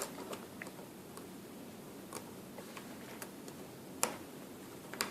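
Scattered faint clicks and taps of small Samsung Galaxy S3 parts being handled and fitted, with a sharper click about four seconds in.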